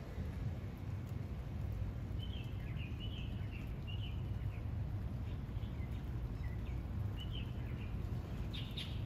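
Small birds chirping in short scattered clusters over a steady low outdoor rumble.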